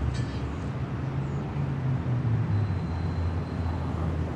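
Low, steady engine rumble whose pitch drifts slightly up and down.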